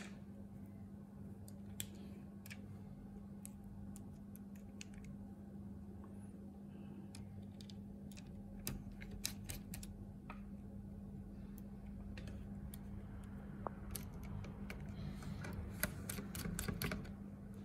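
Scattered light clicks and taps of a precision screwdriver and small screws as the heatsink is screwed back onto a MacBook Pro logic board, with a quicker run of clicks near the end. A faint steady low hum runs underneath.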